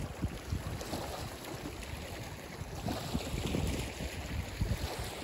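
Wind buffeting the microphone in irregular low gusts, over a steady hiss of small waves lapping on a pebble shore.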